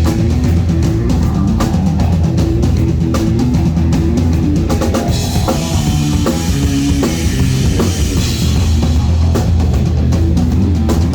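Rock band playing live and loud, with a driving drum kit, kick drum and cymbals over bass and guitar.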